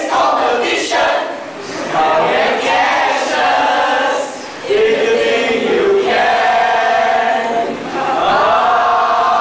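A group of voices chanting and singing a cheer in unison, with long held notes in the second half.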